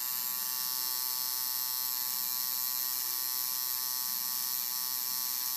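Permanent-makeup tattoo machine running as eyebrows are tattooed, a steady small-motor buzz at an even pitch with a high whine.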